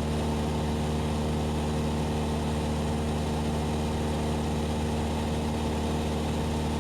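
Cessna 172SP's four-cylinder Lycoming piston engine and propeller running at a steady, unchanging speed, heard from inside the cockpit.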